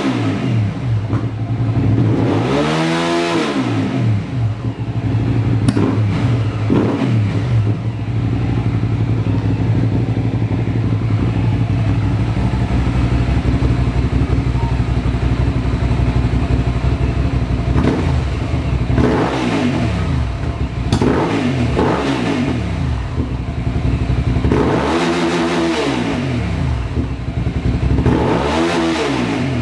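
2012 Hyosung GT650R's 650cc V-twin engine running through a custom exhaust, revved up and back down with the throttle several times. Between revs it idles steadily, with a longer stretch of plain idle in the middle.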